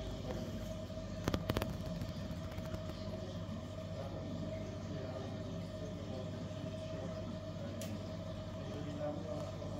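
Steady hum of running marine aquarium equipment, such as pumps, with a constant tone over a low drone. A short cluster of sharp clicks about a second and a half in.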